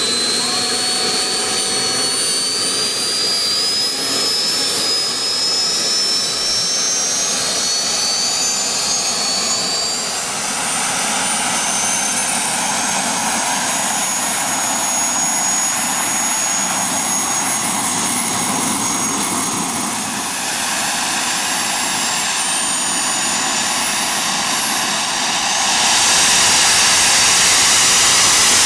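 Small jet engines on a go-kart running, a high whine climbing steadily in pitch over the first ten seconds or so. About 26 seconds in the noise jumps louder and brighter as the kart pulls away.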